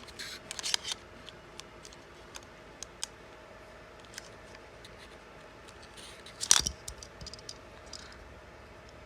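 Small hard plastic toy pieces being handled: scattered clicks and taps, with a louder clatter about six and a half seconds in.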